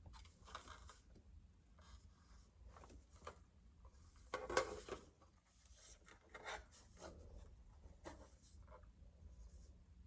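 Faint, irregular scraping and rubbing as a screw and the plastic mounting plate of a smoke alarm are worked by hand, with a louder scrape about four and a half seconds in.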